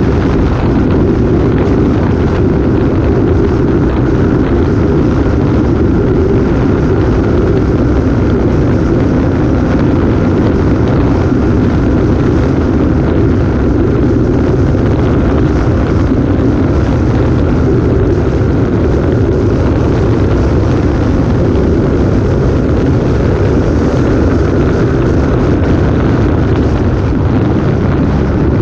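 Motorcycle riding at a steady cruising speed: a loud, unchanging rush of wind buffeting the action camera's microphone, with the engine running beneath it and no revving or gear changes.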